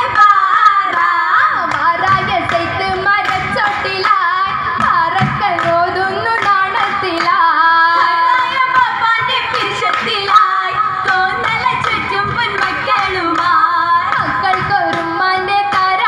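Oppana performance: a group of female voices singing a Mappila song together, with the dancers' rhythmic hand-clapping keeping time throughout.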